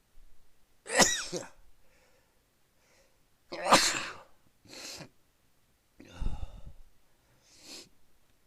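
A person in a sneezing fit: two loud sneezes about three seconds apart, followed by several softer sneezing sounds and breaths.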